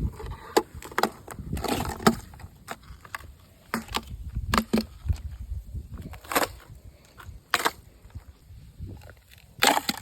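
Irregular sharp cracks and crunches of creek ice being stepped on and broken, a dozen or so over several seconds, over a low rumble of wind on the microphone.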